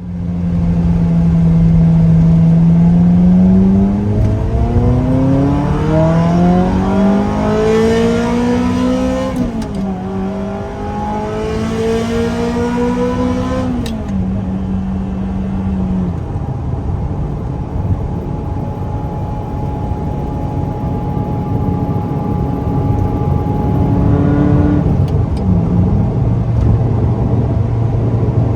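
Ferrari F355's V8 heard from the passenger seat, accelerating hard: the engine note climbs in pitch, dips at an upshift about a third of the way in, then climbs again. About halfway through it lifts off and settles to a low, steady cruise, with a short rise in revs near the end.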